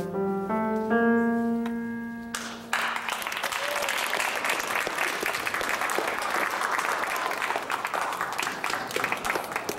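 Steinway grand piano playing the last notes of a piece and holding its final chord, then audience applause that starts about two and a half seconds in and carries on, dying down only near the end.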